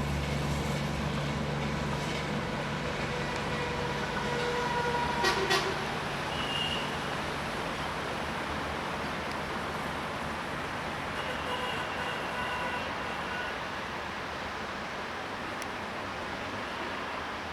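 Passing train's rumble slowly fading as it moves away, with a brief knock about five seconds in and a few short, high horn-like tones.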